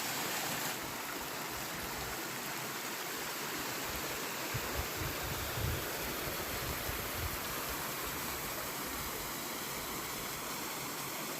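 Small woodland waterfall cascade with water rushing steadily over rock.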